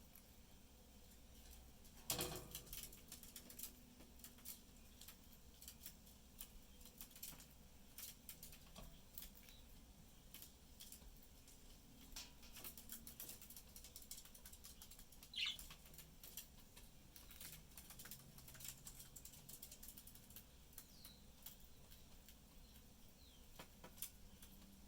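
Pet budgies pecking and nibbling at food, with faint, irregular beak clicks and a louder knock about two seconds in. A single short budgie chirp comes about midway.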